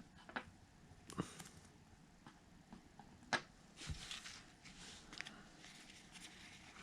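Faint rustling and handling of baseball trading cards, with a few sharp clicks and ticks, the loudest about three seconds in, and soft sliding rustles after it.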